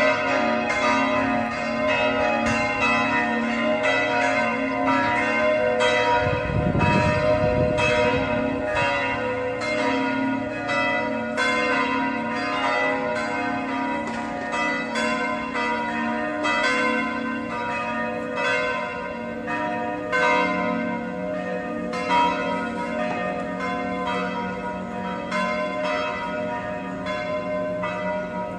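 Church bells ringing continuously, struck about twice a second with the tones overlapping and sustaining. There is a brief low rumble about seven seconds in.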